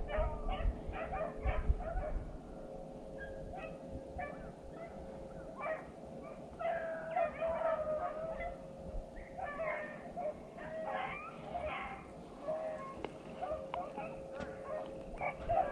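A pack of beagles baying on a freshly jumped rabbit's trail: repeated yelping bays in bunches, overlapping, with short gaps between runs of cries.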